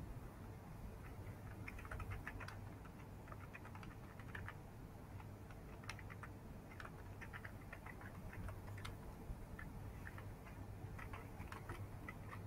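Faint, irregular clicking of typing on a computer keyboard, in quick clusters, over a low steady hum.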